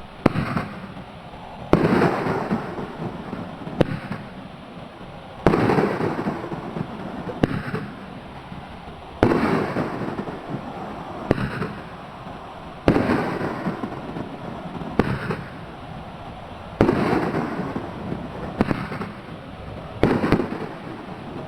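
A Raccoon Fireworks 'Willow King' 500-gram cake firing hard-breaking willow shells. Sharp reports come about every two seconds, with a louder boom every few seconds that trails off in a long fading hiss.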